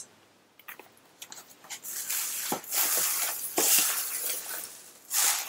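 Packaging rustling and crinkling as hands rummage through a subscription box, with a few light knocks; it starts about two seconds in, after a short quiet moment.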